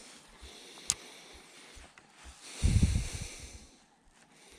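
Wind buffeting and handling noise on a body-worn camera's microphone while fishing with a spinning rod: a single sharp click about a second in, then a louder rumbling gust around three seconds in that fades away.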